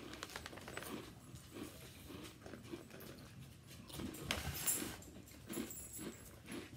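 People chewing and crunching churro snacks, with the plastic snack bag crinkling as a hand reaches into it.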